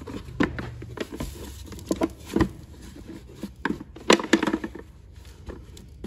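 Irregular knocks, rattles and scrapes as debris and loose coins shift inside the plastic collection tank of a Milwaukee 2-gallon wet/dry vac while it is tipped and shaken. A hand then sifts through the sand and grass in the tank.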